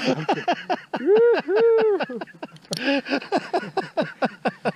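Hearty laughter: a quick run of short 'ha' syllables with two longer, drawn-out whoops about a second in.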